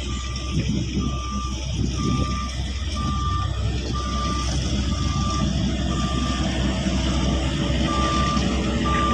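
Diesel road rollers running on fresh asphalt: a steady low engine rumble under a single-pitched reversing alarm that beeps about once a second, pausing once near the end.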